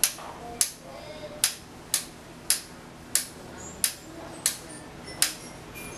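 A wall light switch flicked on and off over and over: about nine sharp clicks, one every half second or so.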